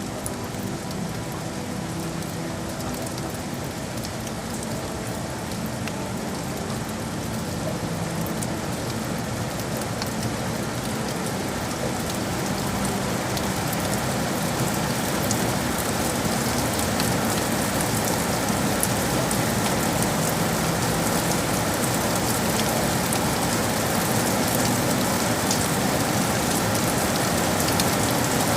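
Steady rain falling on hard city surfaces, with scattered drop ticks over the hiss and a faint low hum underneath; the rain grows gradually louder.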